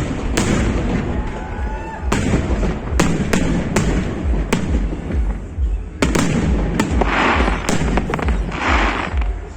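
Fireworks going off: a run of about ten sharp bangs at uneven intervals, with two crackling, hissing bursts late on.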